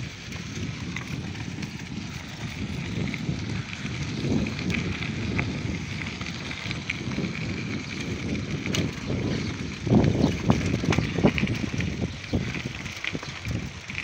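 Bicycles rolling over a loose gravel dirt road: tyres on stones and the bikes rattling, with wind rumbling on the microphone, loudest about ten seconds in.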